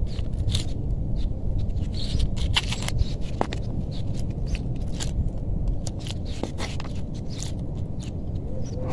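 Scattered clicks and scrapes of a small metal tin being opened and its contents scraped out with a metal utensil, over a steady low rumble.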